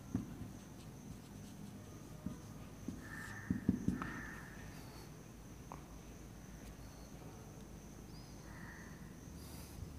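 Marker pen writing on a whiteboard: faint squeaks and taps of the tip against the board, busiest about three to four seconds in and squeaking again near the end.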